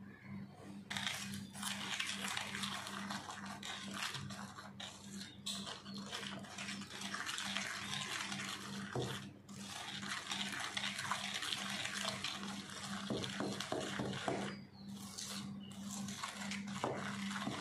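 Hand whisk beating egg yolks into creamed butter and sugar in a stainless steel bowl: a fast, continuous swishing and scraping of the wires against the bowl, with brief pauses about nine seconds in and again near fifteen seconds.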